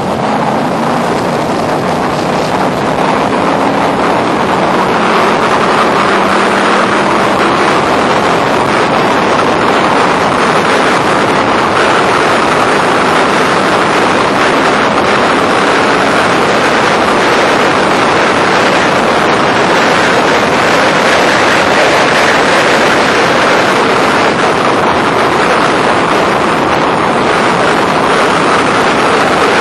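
Factory Five roadster race car engine running hard at racing speed, heard from the open cockpit, with heavy wind noise on the microphone.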